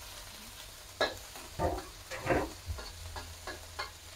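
Metal spatula scraping and stirring red curry paste frying in oil in a stainless steel wok: a quiet first second, then a run of about seven short scrapes.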